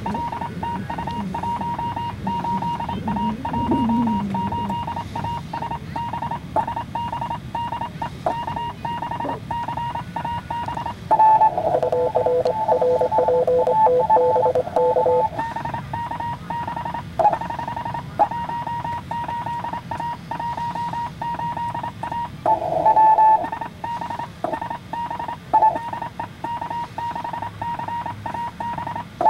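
Fast Morse code (CW) from an amateur radio transceiver: a tone near 1 kHz keyed rapidly in dots and dashes as the operator sends on a hand key. About 11 seconds in, for some four seconds, and again around 23 seconds, a louder, lower-pitched keyed signal comes in.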